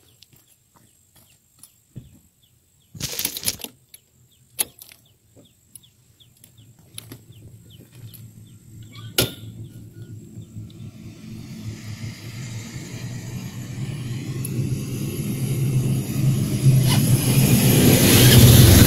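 Scattered knocks and clicks of the camera being handled, the loudest about three seconds in. Then the low engine rumble and road noise of a heavy dump truck grow steadily louder, peaking near the end as it passes close by.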